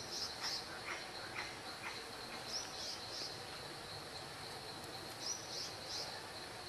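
Outdoor ambience: a steady high insect drone, with a bird giving short high chirps in groups of two or three a few seconds apart.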